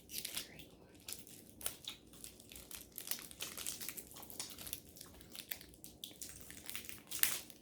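Plastic snack wrapper crinkling as it is handled, in irregular crackles with a louder one near the end.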